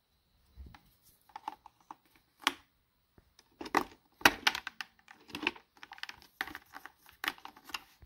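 A capsule espresso machine being loaded: a coffee capsule dropped into the open capsule chamber and the lid lever worked by hand, giving an irregular run of hard plastic clicks and knocks, loudest about halfway through and again near the end.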